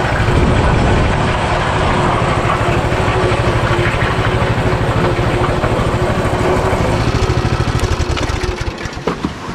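A motor running steadily, with a rapid low pulsing under a steady hum; it eases off near the end.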